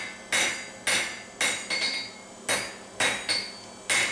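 Blacksmith's hammer striking hot steel on an anvil, shaping the end of a knife blank: six or seven blows about half a second apart, with a short pause about halfway through. Each blow rings briefly.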